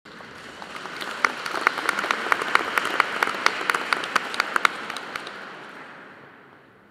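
Audience applauding, with one nearby pair of hands clapping sharply and unevenly above the crowd. The applause dies away over the last couple of seconds.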